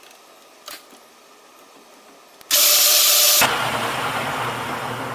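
JET metal lathe's spindle and chuck briefly run up: a sudden loud rushing whir starts about halfway in, drops after about a second, and gives way to a lower hum that fades as the spindle coasts toward a stop. A light click comes under a second in.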